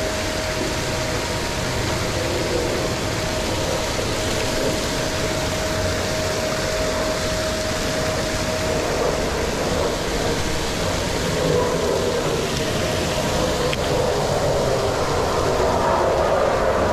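Paddle-wheel aerators churning pond water: a steady rushing splash, with a thin steady tone that fades out about halfway through.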